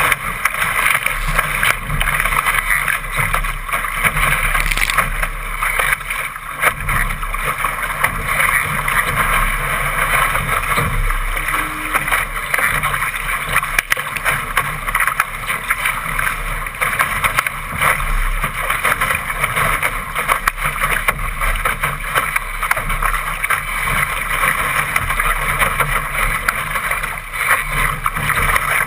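Rushing water and spray off the bow of a Laser dinghy moving fast through choppy water, a steady, loud wash of noise, with wind buffeting the deck-mounted microphone.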